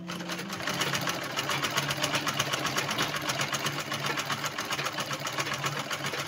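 Treadle sewing machine stitching steadily at a rapid, even rhythm of several stitches a second, needle running through leatherette, zip and lining; the machine has just been oiled to make it run smoothly.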